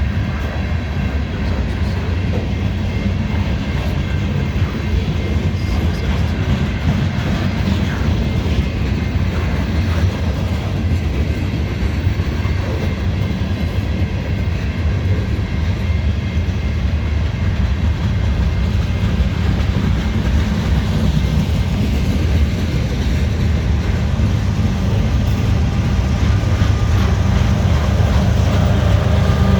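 Cars of a mixed freight train rolling past, steel wheels on the rails making a steady, loud low rumble.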